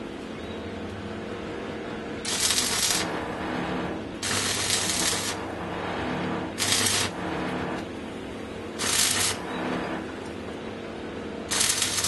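Stick-welding arc crackling and sizzling in five short runs, each about half a second to a second long, as the electrode is struck and broken off again in tack welds. A steady low hum runs underneath.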